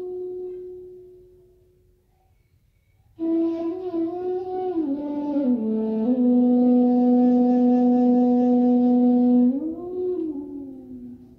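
Slow meditation music on a wind instrument, in long held notes. A held note fades out over the first two seconds; after a short pause a new phrase begins about three seconds in, sliding down between pitches to a long low note, then rising and falling once more before fading near the end.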